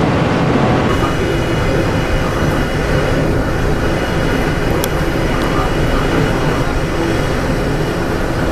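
Train running along the track, heard from the driver's cab: a steady noise of wheels on rails and running gear. About a second in the sound shifts, with more high hiss and a faint steady high whine, and a single sharp click comes near the middle.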